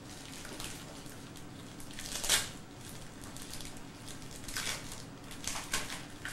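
Gift wrapping paper and packaging rustling and crinkling in short bursts as presents are handled, loudest about two seconds in, over a steady low hum.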